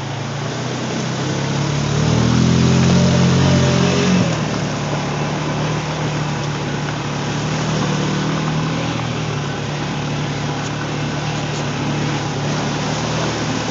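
Honda ATV engine running under load, revving harder and louder about two seconds in, then dropping back at about four seconds to a steady pull.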